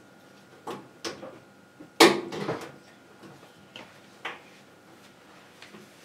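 Scattered knocks and clatters of hard objects being handled, about six in all, the loudest a sharp clatter with a short rattle about two seconds in, over a faint steady hum.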